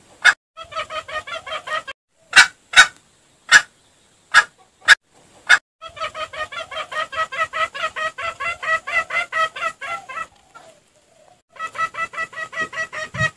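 Junglefowl lure call: fast runs of clucks, about seven or eight a second, with several pauses. Single loud, sharp clicks fall in the gaps between the runs.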